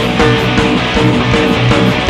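Live rock band playing an instrumental passage, electric guitars to the fore over a steady beat, with no singing.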